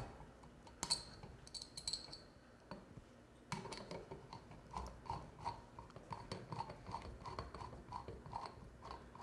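Phillips screwdriver backing out the mounting screws of a porcelain pull-chain lamp holder on a ceiling box: faint metal clicks and scrapes, a few light clinks early on, then small ticks two or three a second from about three and a half seconds in.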